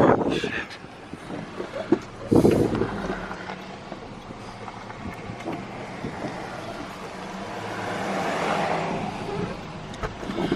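Vehicle engine and road noise, with a steady low hum under a noisy wash. There is a brief loud rush about two and a half seconds in, and the noise swells and fades again near the end.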